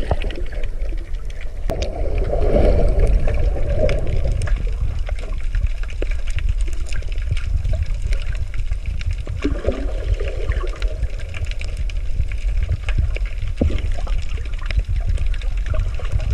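Underwater sound picked up by a camera held in the sea: a steady low rumble of moving water with many scattered clicks and crackles, and a couple of brief swirling surges.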